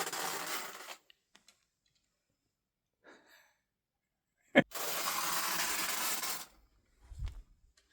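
Bicycle being worked for sound effects: two bursts of even, hissing or whirring noise about two seconds each, separated by faint clicks and one sharp click, with a couple of soft low knocks near the end.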